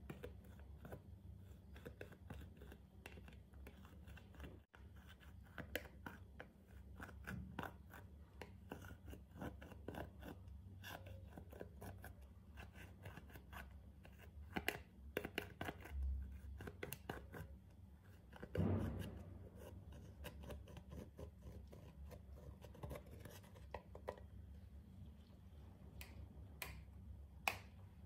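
A metal-tipped dotting tool scraping and crumbling pressed eyeshadow out of the pans of a plastic palette: a dense, uneven run of small scratchy clicks and scrapes, with one louder thump about two-thirds of the way through.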